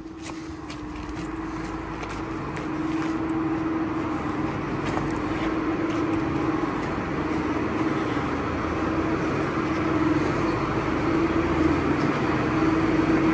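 Diesel tractor engine idling with a steady hum, growing steadily louder.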